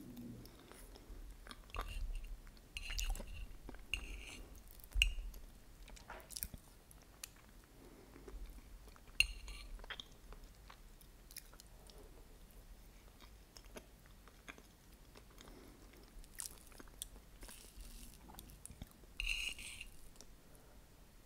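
Close-miked chewing of soft, creamy cheesecake with caramel sauce: intermittent wet mouth smacks and small clicks, with a few louder smacks.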